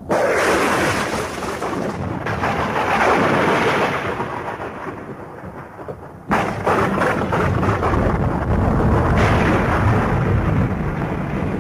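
Thunderstorm: steady heavy rain with two sudden thunder claps, one right at the start and one about six seconds in, each rolling on in a low rumble.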